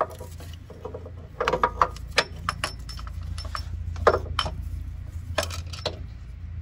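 Irregular metallic clinks and knocks as a new serpentine belt tensioner is handled and slid up into place against the engine.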